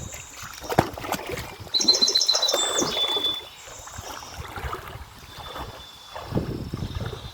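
A bird chirping, with a quick run of repeated high notes about two seconds in, over splashing and sloshing water with a few knocks.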